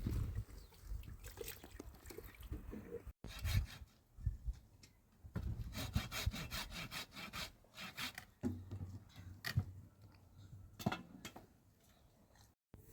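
Repeated rough scraping strokes, with a fast, even run of them, about five a second, in the middle.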